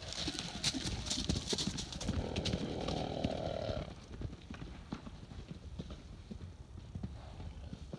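Horses' hooves pounding the dirt paddock as they canter and buck at play. The hoofbeats come thick and fast for the first few seconds, then thin out to scattered steps. A breathy rush of noise is heard about two seconds in and lasts over a second.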